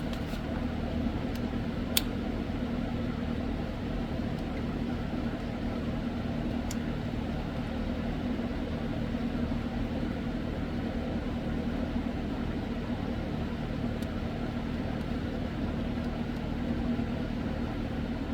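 Steady low mechanical hum, with a faint sharp click about two seconds in and another near seven seconds.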